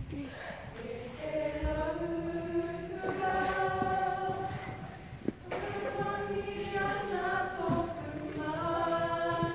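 A kapa haka group singing a Māori waiata together, mostly girls' voices, with long held notes. The singing breaks briefly about five seconds in, with a short click, then carries on.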